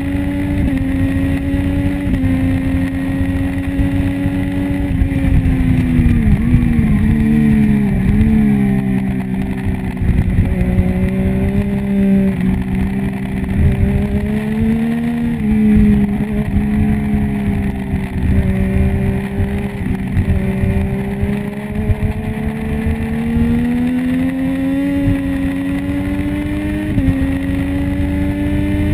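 Triumph Street Triple's 675 cc inline-three engine running hard on a racetrack, heard from the bike itself. The pitch steps up a couple of times in the first seconds, falls with a few short wobbles about six to eight seconds in, then climbs steadily for a long stretch before stepping again near the end, over a steady rush of wind.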